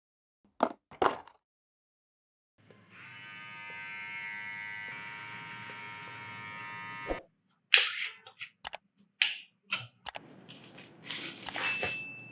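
Xiaomi Mi electric trimmer motor running with a steady buzz for about four and a half seconds, then cutting off abruptly. A couple of sharp clicks come before it, and several sharp clicks and knocks follow it, with a quieter steady noise near the end.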